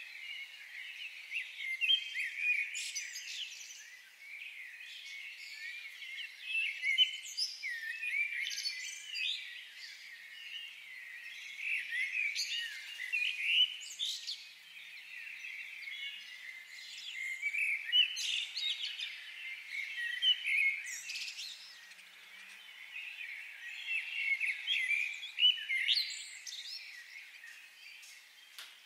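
Many birds chirping and calling together: a dense chorus of short high chirps and warbles that swells and eases every few seconds.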